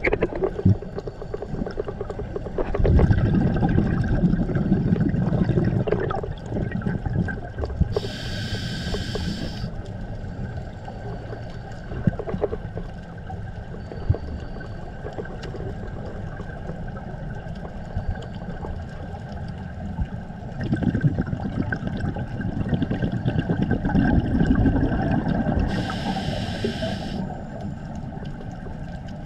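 A scuba diver breathing through a regulator underwater: twice a long rumble of exhaled bubbles, each followed by a short hiss of air drawn in through the regulator. Faint clicks and a steady hum sit underneath.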